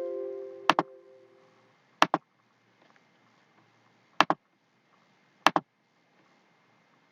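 Four double clicks of a computer mouse, spaced a second or two apart, after a pitched tone fades away in the first second.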